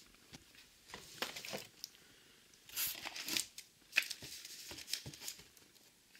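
Cardboard boxes and plastic shrink-wrap rustling and crinkling as fireworks packages are handled, in two short spells, with a light knock about four seconds in.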